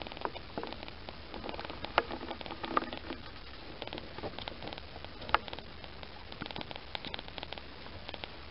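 Kittens purring with the microphone close against them, a fine crackly rattle that goes on throughout, with a few sharper clicks, loudest about two and five seconds in.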